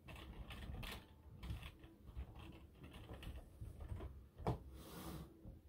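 Faint, scattered clicks and taps of typing on a computer keyboard, over a low room hum.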